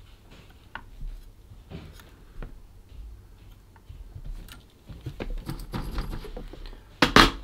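Faint scattered clicks and light taps from a soldering iron and hand tools worked against a circuit board's chip pins, busier towards the end, with one short louder knock near the end.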